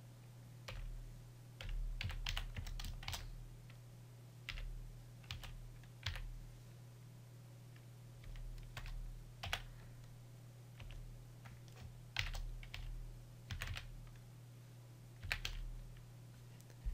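Computer keyboard keystrokes: slow, irregular typing in short bursts of a few keys with pauses between, over a steady low hum.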